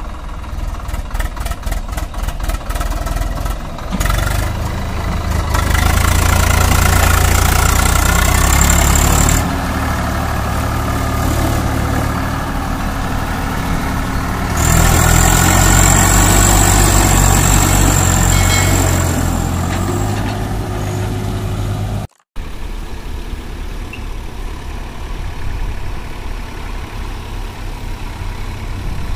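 Swaraj 744 XT tractor's diesel engine running, rising twice to long loud spells under load as it pulls a trolley loaded with soil and rock, with a high whine over the engine during those spells. After a sudden break the engine runs on more quietly.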